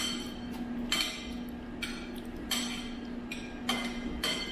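Metal spoon and fork clinking and scraping on a ceramic plate as the last of a meal is gathered up. There are about six short ringing clinks, roughly one every second or less.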